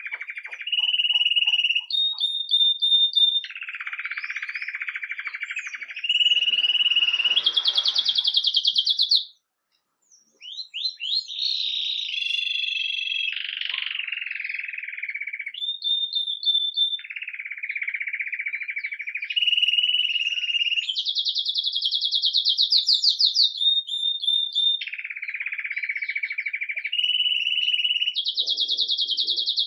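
Domestic canary (Belgian canary, red mosaic agate) singing a 'campainha' (bell) song: a long run of rapid repeated-note trills, each held for a second or two before jumping to a higher or lower pitch. The song breaks off for about a second some nine seconds in.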